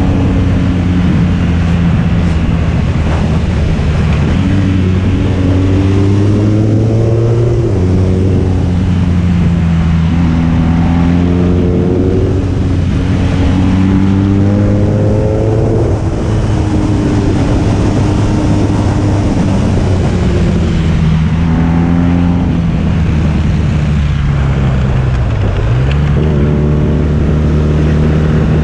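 Motorcycle engine under way, the revs climbing and then dropping back several times as it shifts gears, over a steady rush of wind and road noise.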